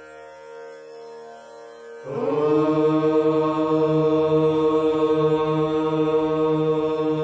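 A group of voices chanting a long, held 'Om' in unison. It starts about two seconds in, over a quieter steady hum, and holds one steady pitch.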